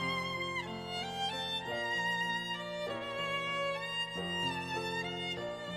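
Background music: a slow violin melody over held low notes.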